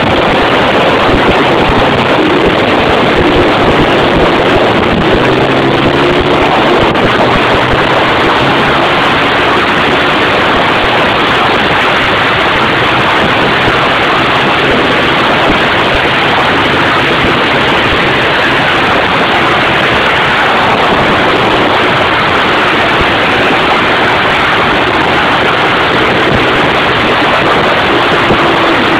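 Four-wheeler engine running as it rides along, with the pitch rising and falling as it speeds up and slows a few seconds in and again near the end, half buried under heavy wind noise on the microphone.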